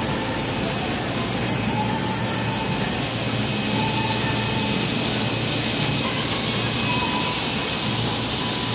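Steady, even mechanical running noise with no distinct strokes or rhythm.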